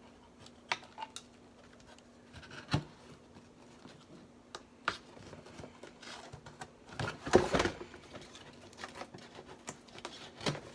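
A cardboard box being packed and its flaps folded shut: scattered light clicks and rustles of plastic and cardboard, with a louder rustling scuff about seven seconds in.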